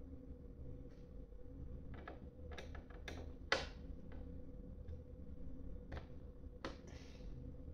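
Scattered light clicks and taps of a BMS circuit board and its small screws being handled and fitted onto a battery case's front panel by hand and screwdriver, with one sharper knock about three and a half seconds in.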